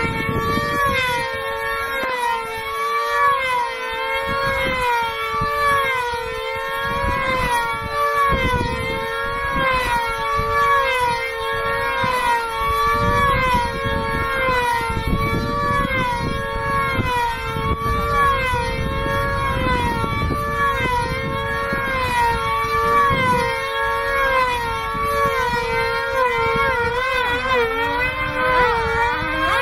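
Two F2D control-line combat models' two-stroke glow engines running flat out, their high notes wavering up and down in pitch about once a second as the models circle the pilots at speed. Near the end one engine's note drops sharply. Wind rumbles on the microphone.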